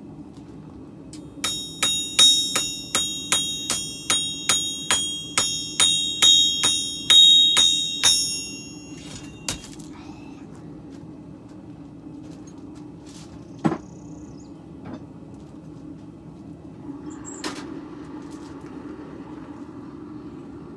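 Hammer striking steel on an anvil, about twenty ringing blows at roughly three a second that stop after some seven seconds. A single knock follows later. A steady low hum runs underneath.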